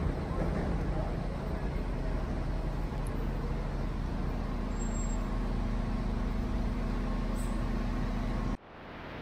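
Steady city traffic rumble under elevated train tracks on a wet street, with a city bus's engine idling alongside. The sound cuts off suddenly near the end, leaving a quieter hiss.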